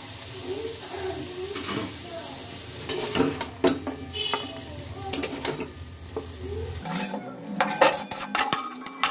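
Chopped chicken sizzling in a little oil in a kadai while a utensil scrapes and clacks against the pan. About seven seconds in the sizzle drops away and metal clatter follows, with the chicken being lifted out of the pan.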